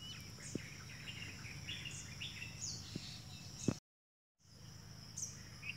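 Birds chirping and calling in short scattered notes over a steady high insect drone, with a few sharp clicks; the sound drops out completely for about half a second just before the middle.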